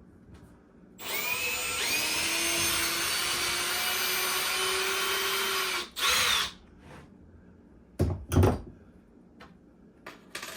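Power drill driving a screw in reverse, backing the last screw out of a wall stud: a steady whine for about five seconds, then a second short burst. Two thumps follow near the end.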